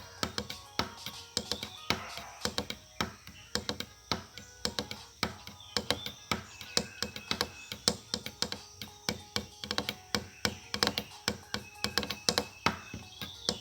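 Rapid, irregular tapping or clicking, several taps a second, with faint short high tones now and then.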